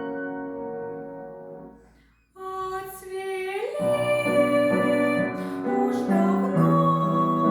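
Music from a Russian romance: the piano accompaniment fades to a short pause about two seconds in, then the music starts again and a woman's singing voice comes in with the accompaniment.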